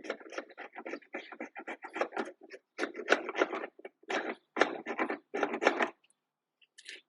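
Wood file rasping across wood in repeated strokes, short and quick at first, then longer, steadier strokes, stopping about six seconds in with a few brief strokes near the end. The file is rather dull.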